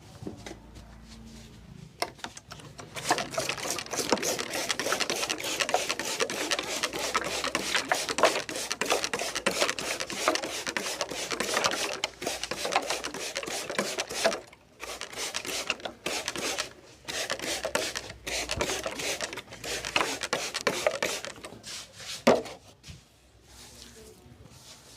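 A barber's hands rubbing and pulling hair against the scalp in a head massage, making a dense, rapid crackling and scratching ('hair cracking') that stops briefly a few times. One sharp, louder crack comes near the end, after which it goes quiet.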